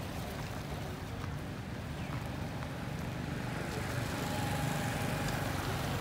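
Steady low rumble of road traffic, growing a little louder in the second half.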